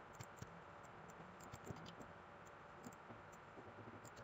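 Near silence with a few faint, scattered clicks from a computer mouse.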